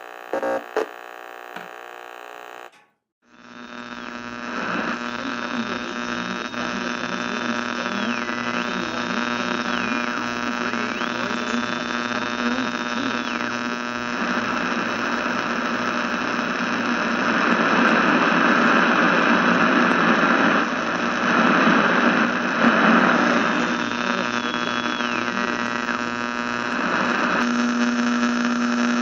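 Radio static as the receiver is tuned across the dial. A few seconds of crackle cut off, then a dense hiss with a steady hum starts. High whistles in the hiss drop and rise in pitch as the dial moves, and the static grows louder and rougher toward the end.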